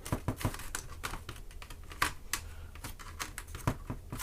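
Plastic clicks and snaps of a ThinkPad E450 laptop's keyboard bezel being pried off with a credit card, its latches popping loose. Irregular sharp clicks, the loudest about two seconds in and again near the end.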